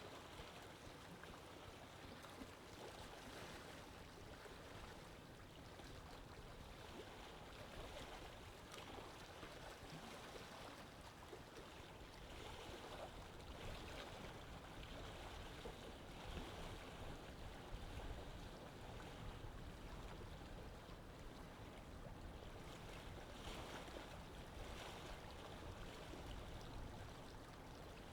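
Faint, steady background hiss with no distinct events: near silence.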